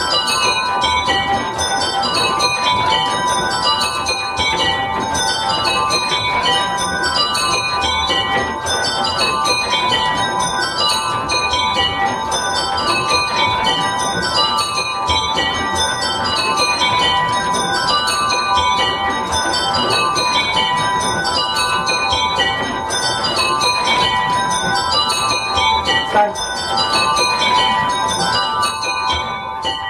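A ring of eight miniature bells, cast by Higby & Bowditch with a tenor of 9 lb 8 oz in G, being rung in changes. Each row is a quick descending run of bell strikes, repeating about every two seconds, and the ringing stops at the end.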